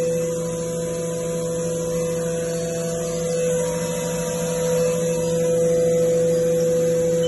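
Haas OM-2A vertical machining center's spindle running at full speed, about 30,000 rpm, with no cutting load: a steady whine with a lower hum beneath.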